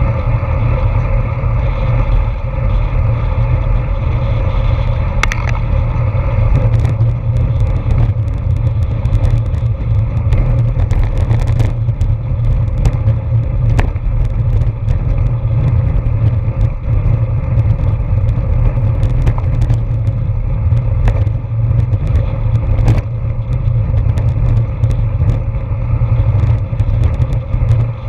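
Wind buffeting the microphone of a camera mounted on a racing road bicycle at speed, a steady low rumble mixed with tyre and road noise. From about six seconds in, frequent small clicks and rattles come through as the bike runs over the rough, patched asphalt.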